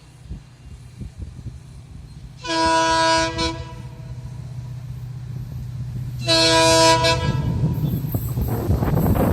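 Horn of a WDP-4D diesel locomotive (EMD horn) sounding two blasts over the steady drone of its engine: one of about a second, two and a half seconds in, and a shorter one about six seconds in. The rumble of the approaching train grows louder near the end.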